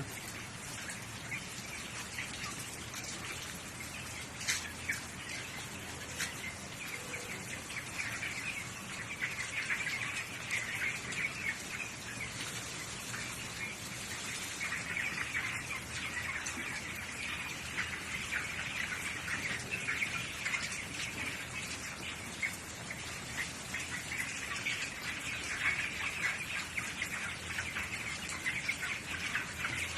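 A large flock of poultry in a shed, many birds chirping and peeping at once in a steady, dense chorus with occasional clucks.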